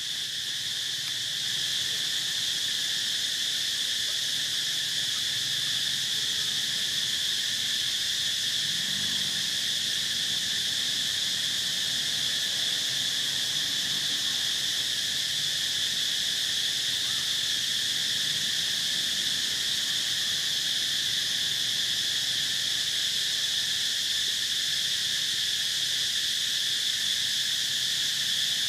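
A steady, high-pitched chorus of insects droning without a break.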